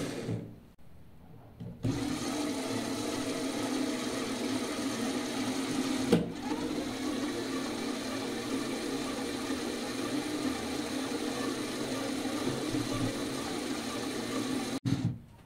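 Two small electric toy motors, an original LEGO Power Functions motor and a red fake copy, running steadily and turning plastic gears, making an even whirring hum. It starts about two seconds in, has a single sharp click about six seconds in, and cuts off abruptly near the end.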